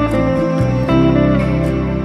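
Background instrumental music: melodic notes changing every fraction of a second over held low notes.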